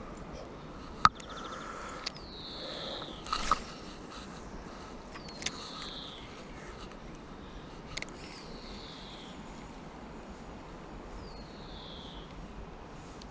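A bird calling four times, a short falling whistle roughly every three seconds. Sharp clicks from a spinning rod and reel being handled during a cast, the loudest about a second in.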